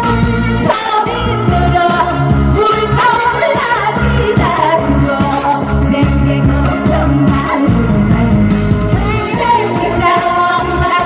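Live band playing an upbeat Korean pop song through a PA, with a singer over a steady pulsing bass beat.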